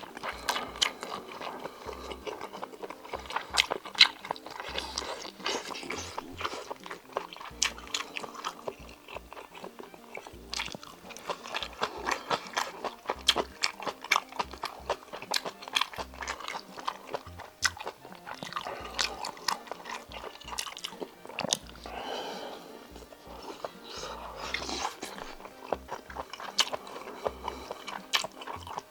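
A person eating octopus bibimbap close to the microphone: irregular biting, chewing and crunching with many small clicks. Background music plays along with it.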